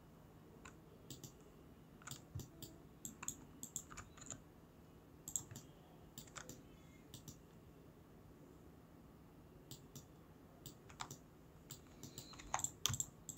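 Faint, irregular clicks of a computer keyboard and mouse being used, in small bursts that grow busier near the end.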